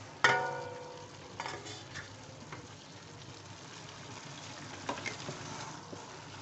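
A metal lid clanks and rings against an aluminium karahi about a quarter second in. Then a wooden spatula stirs and scrapes cauliflower, potato and chicken sizzling in the pan, with a few lighter knocks on the metal.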